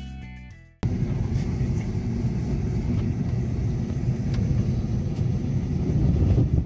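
Background music fading out, then, less than a second in, a sudden cut to the steady rumble of a stock Jeep Grand Cherokee driving slowly over a dirt trail, heard from inside the cabin.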